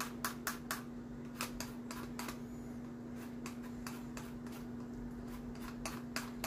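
A lemon being zested on a handheld zester: quick, short scraping strokes in small runs, with a lull in the middle.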